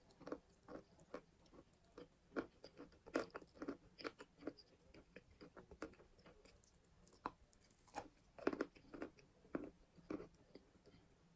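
Edible chalk being bitten and chewed: a run of sharp, irregular crunches in quick clusters with short pauses between them.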